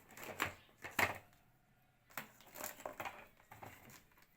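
Light clicks and taps from handling an analog multimeter and its test probes while setting up a battery test: two sharper clicks about half a second and a second in, then a run of softer ticks.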